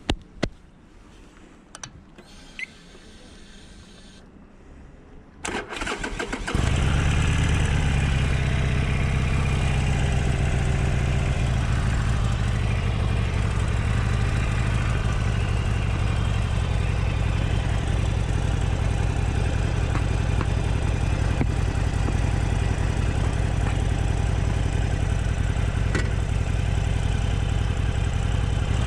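Harley-Davidson Sportster Forty-Eight's air-cooled V-twin cranked on the electric starter, catching about six seconds in and then idling steadily. Before the start, a few faint clicks.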